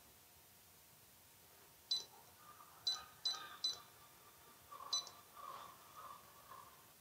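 Faint key-press beeps from the control panel of a Böhler URANOS NX welding machine as its buttons are pressed: five short, high beeps, the middle three in quick succession.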